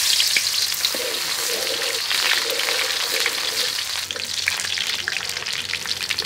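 Chopped garlic sizzling and crackling in hot oil in a metal wok, with many small pops, while a metal ladle stirs it.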